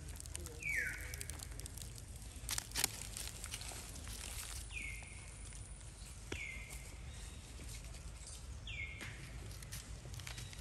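Macaque footsteps crunching and rustling on dry fallen leaves, with a sharper crackle about two and a half seconds in. A short high call that falls in pitch sounds four times.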